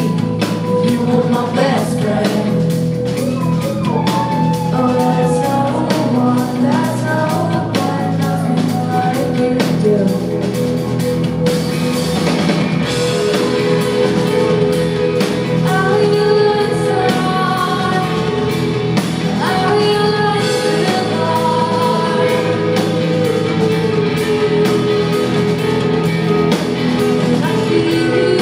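Live indie rock band playing: a woman singing lead over electric guitars, bass guitar and a drum kit, heard from the audience.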